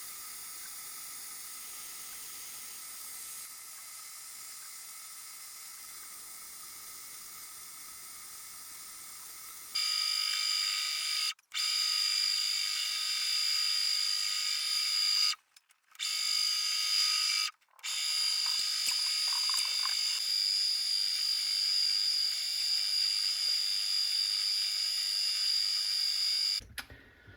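Mini lathe running with a steady motor whine, louder and higher from about ten seconds in, with three short cut-outs.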